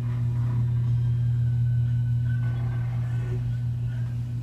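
Steady low electrical hum, with faint music in the background.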